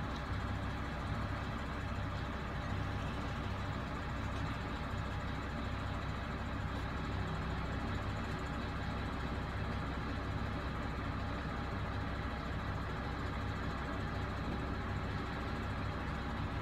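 Diesel engine of a HOWO 8x4 wrecker truck running steadily with a low throb, driving the hydraulics while the crane boom is worked from the side controls.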